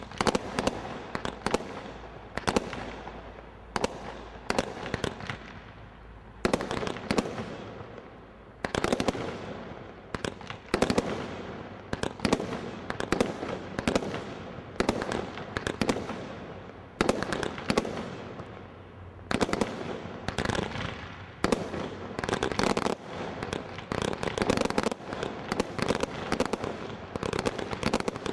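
Hercules Category 3 metal-cage combination Roman candle barrage firing a rapid run of shots into the air. The sharp reports of launches and bursts come several a second, each trailing off.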